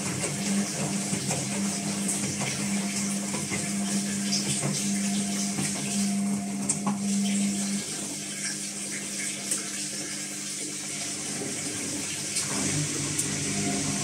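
Whirlpool AWE7516 top-loading washing machine running a service test-mode programme: water rushes through it under a steady hum. The hum breaks off about eight seconds in and comes back at a lower pitch near the end.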